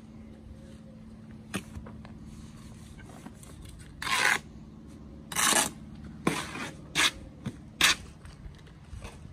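Brick trowel scraping and scooping mortar off a spot board and spreading it along a course of concrete blocks: a series of short scrapes and clinks, the longest about four seconds in.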